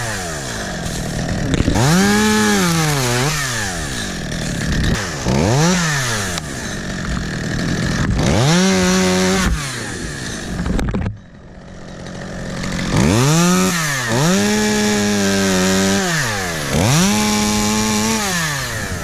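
Two-stroke chainsaw revving up to full speed and dropping back, about six times over, as in short cuts. It briefly drops away about halfway through.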